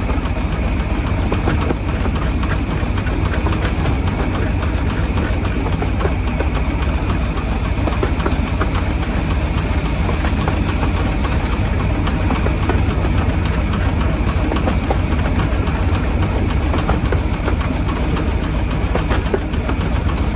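Miniature steam locomotive running along the track, heard from the footplate: a steady, loud running noise with a constant patter of clicks from the wheels on the rails.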